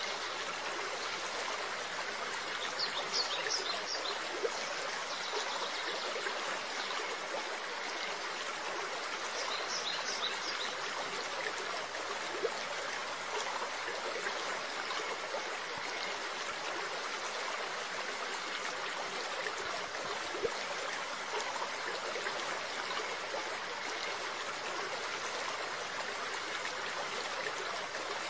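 Steady trickling water in an aquarium, as from the filter return splashing into the tank, with a few faint high chirps about three and ten seconds in.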